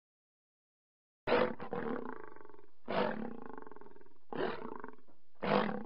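Four deep, animal-like roars about one to one and a half seconds apart, the first about a second in. Each is loudest at its start and holds on before cutting off.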